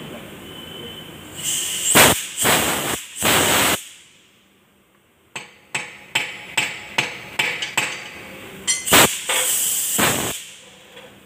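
Hammer knocking a broken stud out of a steel truck wheel hub: about nine sharp metal-on-metal blows in quick succession, a little under three a second, through the middle. Before and after the blows come a few loud, longer bursts of hissing noise.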